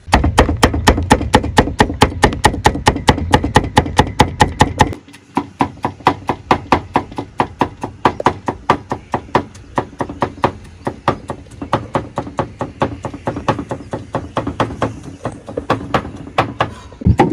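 Cleaver chopping yardlong beans on a wooden chopping block, a quick even rhythm of about four strokes a second. About five seconds in the strokes turn lighter and lose their deep thud.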